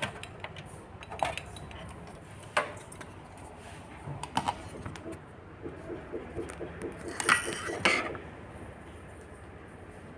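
Scattered light clicks and metallic clinks of a PCIe Wi-Fi adapter card being pulled out of a desktop computer case and handled, with a louder cluster of knocks about seven seconds in.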